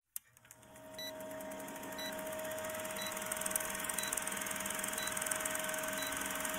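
Old-film countdown leader sound effect: a steady film-projector whirr with crackle, fading up over the first second, and a short high beep once a second.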